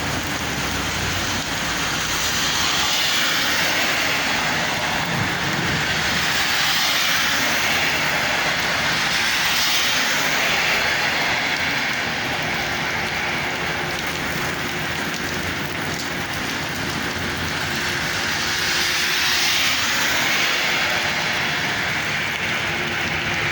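Heavy rain pouring down, a steady dense hiss that swells and eases slowly.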